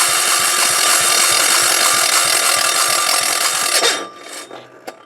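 ETQ DG7250LE diesel generator's single-cylinder engine running loud and steady, then cutting out about four seconds in and coasting to a stop with a few knocks.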